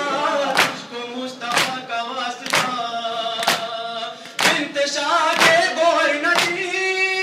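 Men chanting an Urdu noha, a Shia lament, led by a reciter on a microphone, with the congregation beating their chests (matam) in unison at about one strike a second.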